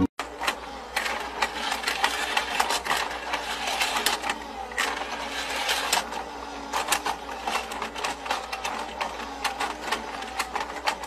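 Battery-powered penguin-slide toy running: its motorized plastic staircase whirring with rapid, irregular clicking and clattering as the penguin figures climb the steps and roll along the track.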